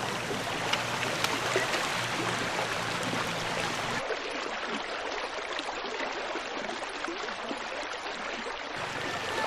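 Shallow river running over stones: a steady rush of flowing water. The rush turns duller about four seconds in and brighter again near the end.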